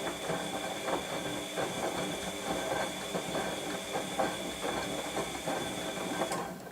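Washing machine running, with a steady high motor whine and a fast, uneven clatter of knocks and rattles that stop suddenly near the end, leaving a faint low hum.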